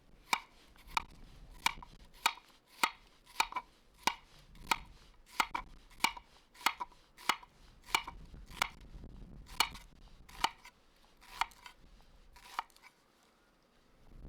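Knife slicing an onion thinly on an acacia wood cutting board: steady, unhurried knocks of the blade meeting the board, about one and a half a second, stopping shortly before the end.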